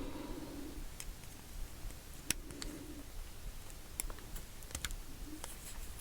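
A few scattered small clicks and ticks of tiny lock pins and a tool handled against a pin-tumbler lock as its pins are loaded back in.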